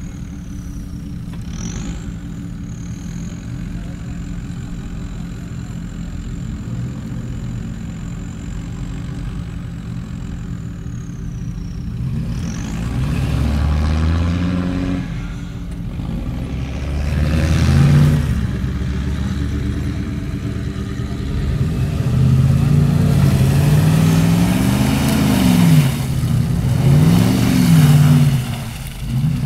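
First-generation Jeep Grand Cherokee engine running at low revs as the SUV comes down a slope, then revved hard again and again in deep mud, its pitch rising and falling several times and growing louder toward the end.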